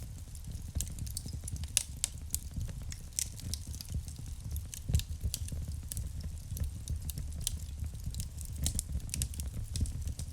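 Wood fire burning in a fireplace: irregular crackles and pops over a steady low rumble of the flames, with a couple of louder pops about two and five seconds in.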